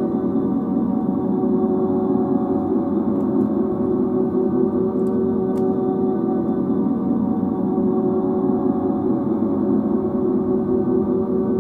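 Steady ambient drone of many held tones, deep and unchanging, without beat or melody.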